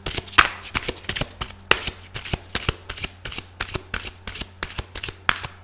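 A deck of oracle cards being shuffled by hand: a quick, irregular run of card snaps and slaps, several a second.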